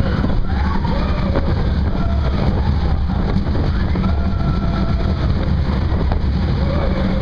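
Loud, steady low rumble of a running engine.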